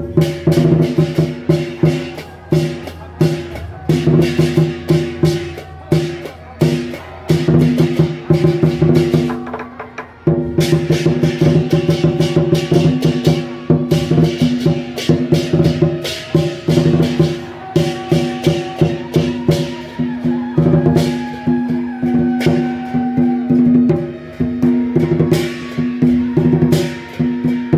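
Procession music: drums and cymbals struck in a quick, steady beat over sustained pitched tones, with a short break about ten seconds in.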